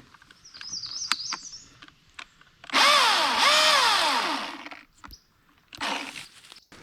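Milwaukee M18 Fuel battery-powered chainsaw revved twice in quick succession, each time the motor's whine climbing quickly and then winding down.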